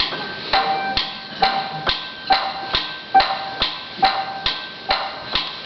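Instrumental introduction to a stage-musical song: a steady percussive beat of about two sharp strikes a second, each with a short pitched ring, over a soft accompaniment.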